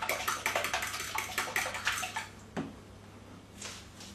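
Milk and egg mixture beaten by hand in a glass bowl: the utensil clicks against the glass about five times a second through the sloshing liquid. The beating stops about two and a half seconds in, followed by a single knock.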